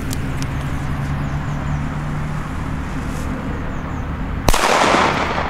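A single firecracker bang about four and a half seconds in, a Funke B-Böller going off on asphalt, sharp and short with a brief echo after it.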